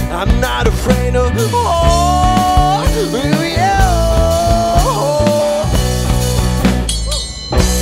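Alternative rock band playing live: a male voice sings long held notes over electric guitars, bass and drums, with a short dip in the band sound near the end.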